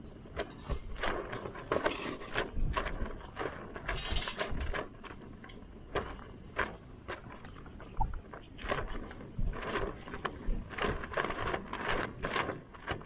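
Cooking gear and utensils being handled: irregular scrapes, clinks and knocks.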